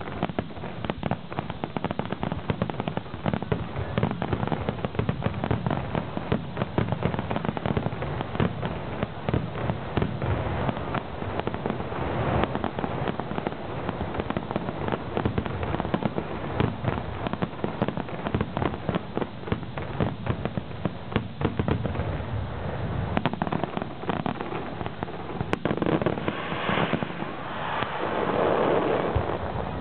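Fireworks display going off in a dense, rapid barrage of bangs and crackles, many reports a second.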